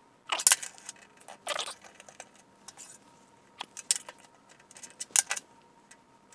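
Small metal clinks and clatters of hand tools and carburetor parts being handled on a steel workbench: a steel rule, a flashlight and the carburetor body. They come in four short bursts a second or two apart.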